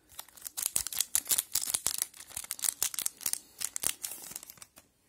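Crinkling, crackling rustle of an Upper Deck Artifacts hockey card pack wrapper being handled and torn open as the cards are pulled out, in quick irregular crackles that die away near the end.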